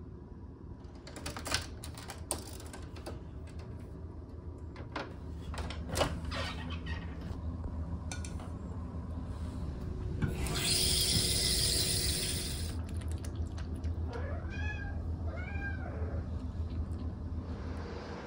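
A few light clicks and knocks, then a sink tap runs for about two seconds into a bowl held under it. Soon after, a cat meows a couple of times, each call rising and falling in pitch.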